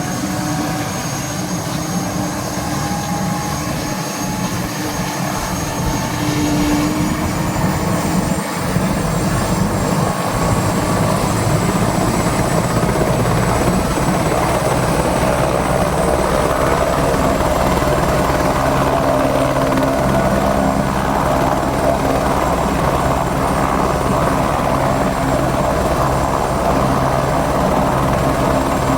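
Helicopter running steadily, growing louder about eight seconds in and staying loud, with a thin high whine over the low rotor sound.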